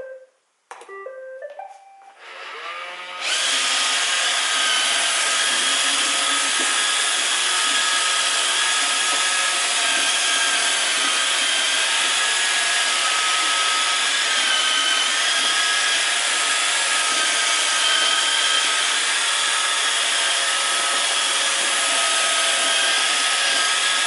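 iRobot Roomba robot vacuum starting a cleaning run: a short series of electronic start-up tones, then about three seconds in its suction motor and brushes come on and run loud and steady with a whine over a strong hiss. It measures about 77 dB at just under a metre, which the owner counts as noisy.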